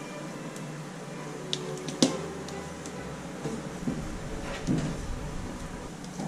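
Small plastic clicks and knocks as a computer mouse's plastic base, circuit board and cable are handled and fitted together. The sharpest click comes about two seconds in, with a few lighter taps and rustling around it.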